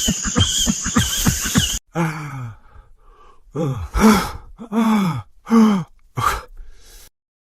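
A rhythmic croaking chorus, about five pulses a second, over a steady high insect-like hiss, cut off abruptly. Then an animal gives four or five low calls, each sliding down in pitch.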